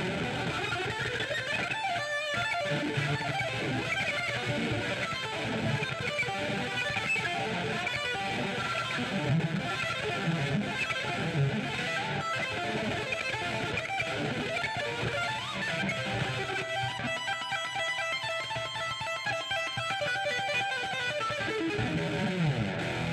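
Kramer Baretta electric guitar played through a Bugera Trirec valve amp head in its Vintage mode, with only the amp's own reverb on. It plays a continuous stream of lead notes.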